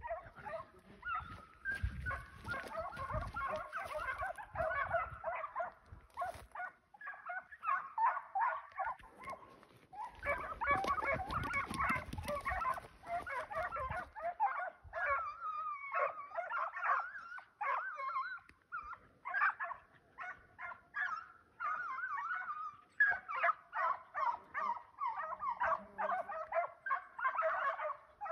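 A pack of foxhounds baying in full cry on a hare's trail, many overlapping cries at once with no let-up.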